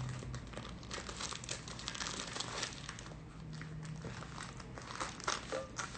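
Thin plastic acetate sheet crinkling and crackling in irregular bursts as it is handled around a large rolled cake, a few louder crackles about five seconds in.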